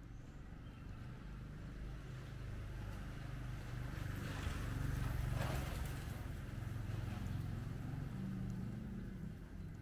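A motorcycle's engine passing on the street: a low hum that grows louder to a peak about five seconds in, then fades.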